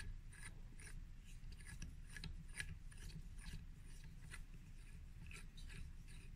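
Faint, irregular metallic clicking and scraping of a Bunsen burner's chimney tube being screwed by hand onto its threaded base.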